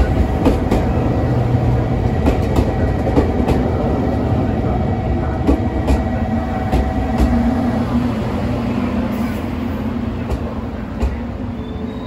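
JR Kyushu 783 series electric train rolling past, with a steady hum and irregular sharp clicks of wheels over rail joints. The hum fades about eight seconds in and the overall sound slowly gets quieter.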